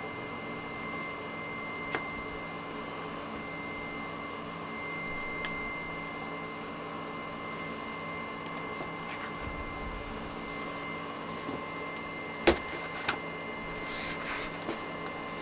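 Thick book being handled: its pages turned by hand with faint paper rustles, a sharp tap about twelve seconds in and a short rustle near the end as the book is lifted and closed. A steady electrical whine made of several fixed tones runs underneath.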